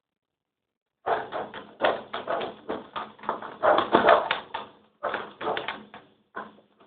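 Fluffy shaving-foam slime being kneaded and squished by hand. It makes a dense, irregular run of wet clicks and pops that starts about a second in.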